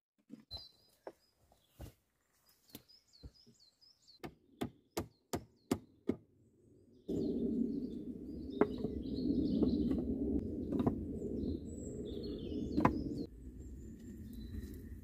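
Hatchet chopping wood in a run of sharp strikes, several of them close together, with birds chirping. About halfway a steady low rushing noise sets in, and a few wooden knocks sound through it.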